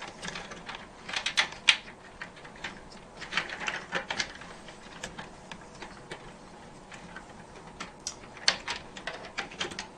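Irregular clicking and rustling of computer cables being pushed through a PC case and worked into place, in short clusters with pauses between.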